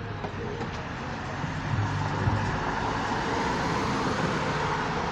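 Car road noise: a steady rush of tyres and engine that grows louder about a second and a half in.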